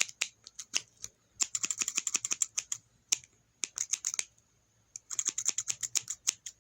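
Scissors snipping in quick runs of sharp, crisp clicks: a dense flurry about a second and a half in, a short cluster near the middle, and another fast run about five seconds in.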